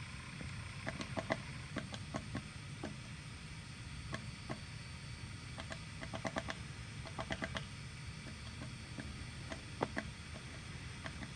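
Woodpecker pecking at wood: irregular sharp taps, singly and in short quick clusters, not a steady drumming roll.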